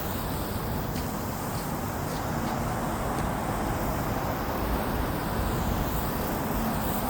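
Steady outdoor background noise with a low rumble, like road traffic.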